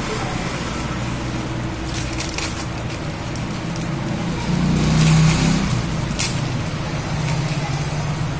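Clear plastic packaging crinkling in short rustles as a sleeve is handled, over a steady low motor-like hum that grows louder about five seconds in.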